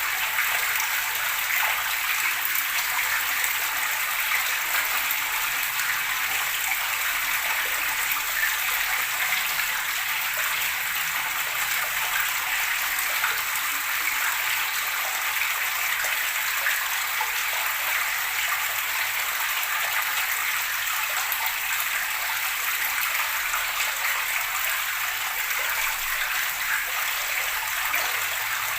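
Running water splashing and gurgling in a steady, bright rush, with no pauses or changes.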